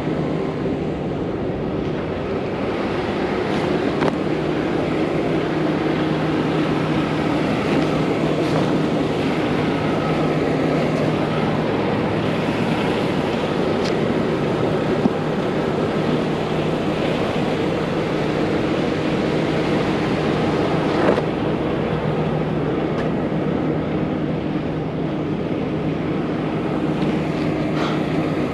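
Steady hum of an idling diesel semi truck engine, mixed with wind noise on the microphone.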